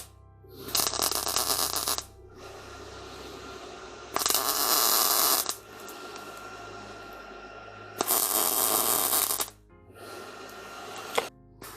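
Background music with three bursts of MIG welding, each about a second and a half long, starting and stopping abruptly: tack welds joining the upper cowling panel to the car body.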